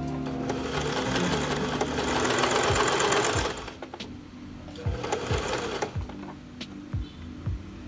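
Domestic electric sewing machine stitching in two runs: a long run of about three seconds, then a shorter burst of about a second.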